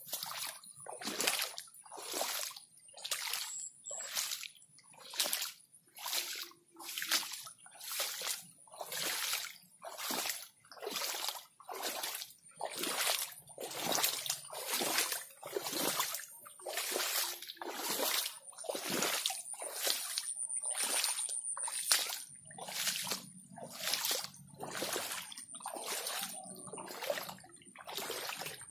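Footsteps splashing and sloshing through shallow standing water and wet grass at an even walking pace, about three steps every two seconds. A faint steady high-pitched tone runs underneath.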